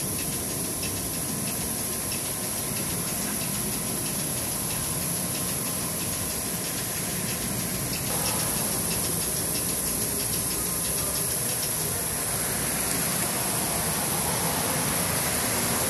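Gasoline pump dispensing fuel: a steady rushing hiss of fuel flow with the dispenser's running hum. It gets a little louder and brighter about halfway through.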